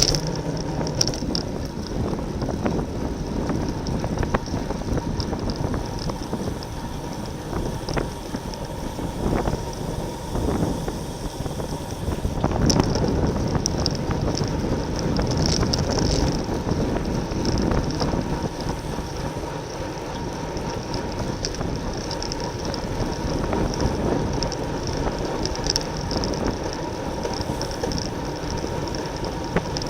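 Wind buffeting the microphone of a racing bicycle ridden at speed, with tyre and drivetrain noise underneath.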